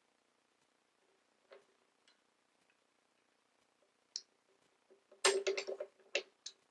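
Handling of surface-cleaner parts during assembly: a few scattered light clicks, then a short clattering run of knocks and clicks about five seconds in, and a couple more clicks near the end.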